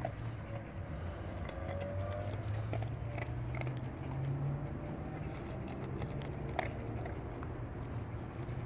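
Wolfdog eating dry kibble from a stainless steel bowl: chewing and crunching, with scattered small clicks, over a steady low hum.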